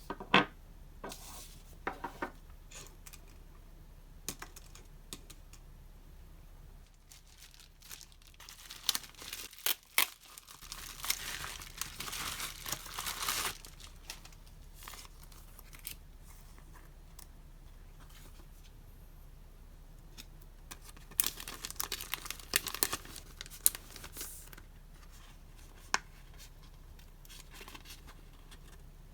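Packaging of a Hobonichi Techo planner being opened and handled: scattered taps and clicks, a stretch of tearing and crinkling wrapping about 11 to 13 seconds in, and another burst of crinkling and clicks about 21 to 24 seconds in.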